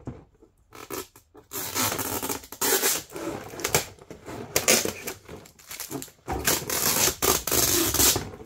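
Clear plastic packaging film crinkling and rustling as hands pick and pull at the tape wrapped around a plastic screwdriver rack. It starts about a second and a half in and comes in uneven spurts.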